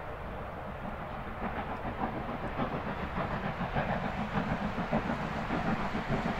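S15 class 4-6-0 steam locomotive No. 506 hauling a train past at a distance: a continuous rumble of the moving train that grows a little louder about a second and a half in.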